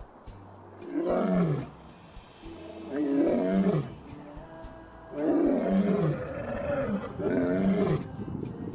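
Two male lions roaring: four deep calls about two seconds apart, each sliding down in pitch.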